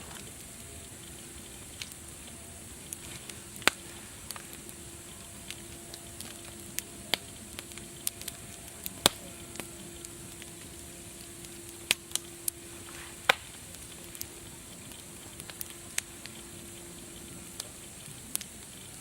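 Wood fire crackling: irregular sharp pops and snaps over a steady hiss, with the loudest pops about 4, 9, 12 and 13 seconds in.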